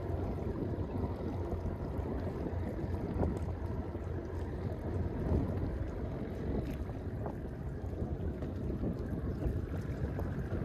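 Wind buffeting the microphone outdoors: a steady low rumble, with a few faint clicks.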